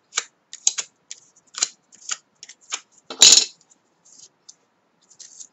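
Small paper flower petals being crumpled between the fingers: a run of short paper crackles, with one longer, louder crinkle a little past the middle.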